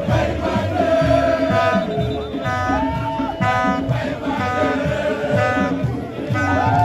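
Loud music with singing voices over a dense, driving drum beat.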